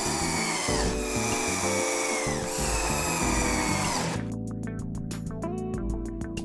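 Cordless drill-driver with an Allen bit driving screws into a chipboard cabinet panel. The motor's pitch drops twice as each screw takes load, then about four seconds in a fast, even clicking takes over, with music underneath.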